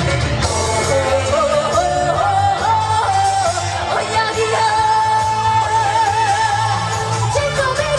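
A woman singing a Korean trot song over band accompaniment, the melody holding long notes with vibrato above a steady bass line.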